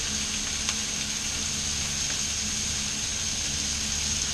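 Chicken breasts, salmon fillets and vegetables frying on a Blackstone flat-top griddle: a steady sizzle with a low steady hum underneath.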